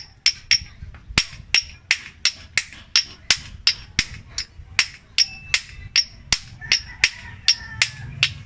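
Small claw hammer tapping a steel bearing into a tensioner pulley: light, evenly paced metal-on-metal strikes, about three a second, each with a short high ring.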